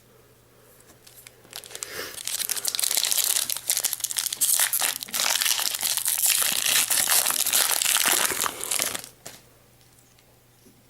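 Foil wrapper of a Pokémon trading card booster pack crinkling as it is handled and torn, starting about two seconds in and stopping about nine seconds in.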